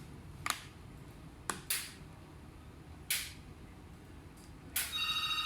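A handful of short, sharp clicks spaced over several seconds, then near the end a steady electronic tone with several pitches sounds.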